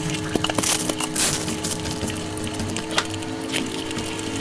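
Close-miked eating sounds: wet chewing with sharp clicks, and the squish of fingers mixing rice into curry.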